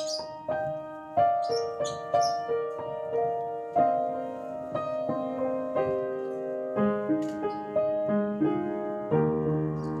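Piano playing a slow introduction of single notes and chords, a new note or chord about once or twice a second, each one fading after it is struck.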